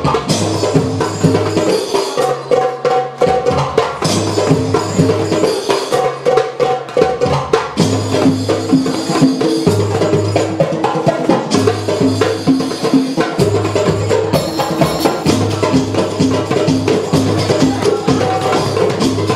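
Goblet drum (darbuka) played by hand in a fast, busy rhythm of sharp strokes, over music with a steady low bass line.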